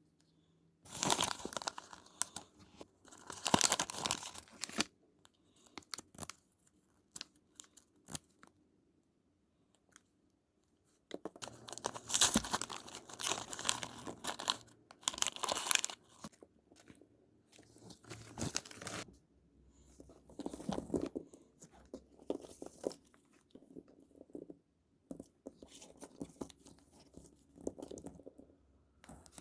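Crinkly plastic packaging of Mini Brands mini book capsules being handled, torn open and crumpled, in several spells of loud rustling and tearing with quieter handling between them.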